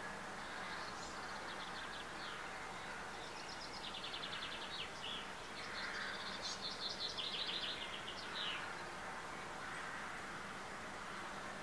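Small songbirds singing: several quick trilled phrases of high chirps, the loudest about six to seven seconds in, over a steady background hiss.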